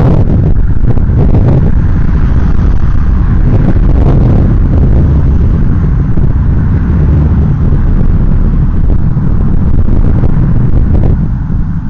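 Wind buffeting the microphone of a camera on a moving bicycle: a loud, steady low rumble that eases slightly near the end.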